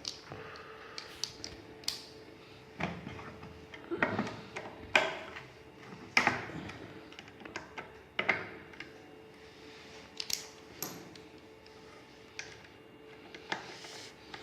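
Irregular clicks and knocks of tools and metal parts being handled while a gas boiler's fan and gas valve are taken apart, over a faint steady hum.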